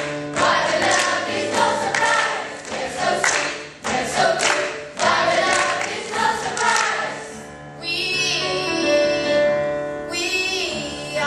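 A stage musical number: a group of voices singing together over sharp percussive beats. About eight seconds in, the beats drop away and the singing voices carry on.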